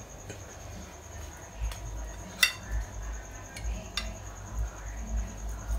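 A metal fork clinking and scraping on a ceramic plate as it cuts into a slice of lasagna, with a few sharp clinks, the loudest about halfway through, and dull low knocks of the plate being handled.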